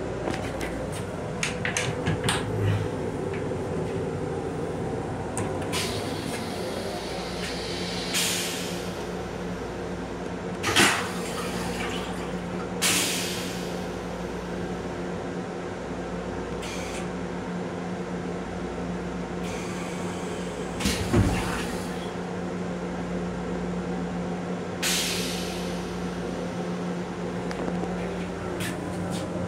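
Steady rumble and hum of an M7 railcar, heard in its small restroom, with scattered clicks and knocks. Several short hisses stand out, the sharpest a whoosh with a thud about 11 seconds in.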